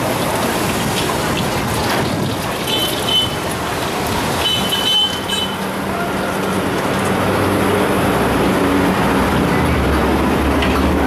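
Busy street noise: road traffic passing a roadside wok stall, over a steady hiss that fits frying at the wok. A vehicle's low rumble builds near the end.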